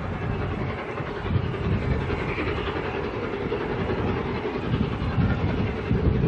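Steam locomotive working hard as it hauls a passenger train, its exhaust chuffing over a steady rumble of the train.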